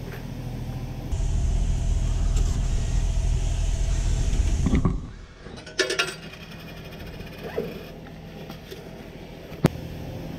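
A 50cc scooter engine running, louder from about a second in, then cutting off about five seconds in. Afterwards a few short clicks and knocks, and one sharp click near the end.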